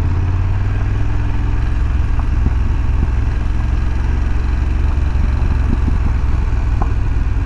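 BMW F850 GS motorcycle's parallel-twin engine running at a steady pace while riding, a low, even drone.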